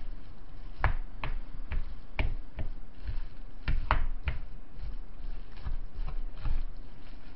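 A spatula knocking and scraping against a large glass bowl while stirring rice and vegetables together, in irregular clacks about once or twice a second.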